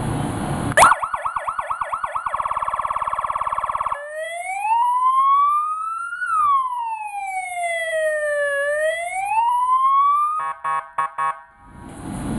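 Compact 30-watt four-tone electronic siren stepping through its tones. It gives a fast yelp of quick repeated chirps, then a rapid warble, then a slow wail that rises, falls and rises again, then a short stutter of broken pulses.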